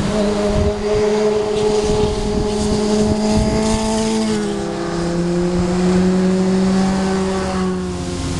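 Sport motorcycle with an inline-four engine passing through a bend at high revs. The engine note holds, drops in pitch about four seconds in, and rises again near the end.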